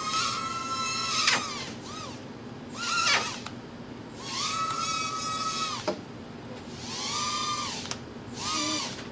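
Estes ProtoX nano quadcopter's tiny motors whining in short spells as it lifts off and drops back: five or six spin-ups, each rising and then falling away, with a few sharp clicks in between.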